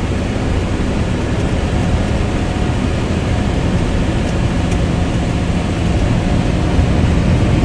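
Steady engine and road noise of a moving truck, heard from inside the cab.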